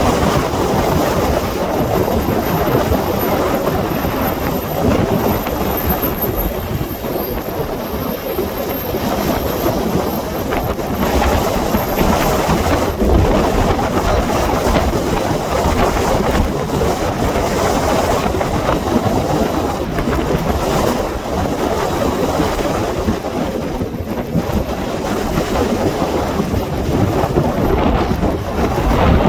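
Strong wind buffeting the microphone: a loud, irregular rumbling rush that gusts up and down without letup.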